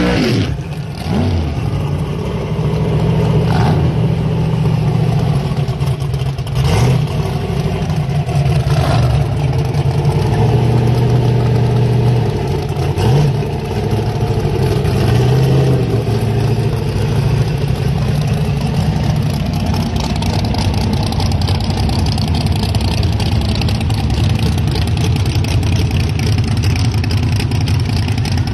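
Race pickup trucks' engines idling loudly at close range, with a few short throttle blips.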